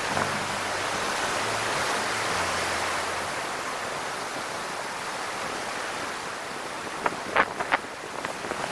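Rough Atlantic surf breaking against a harbour breakwater: a steady rush of waves and spray with wind. A few short, sharp clicks near the end.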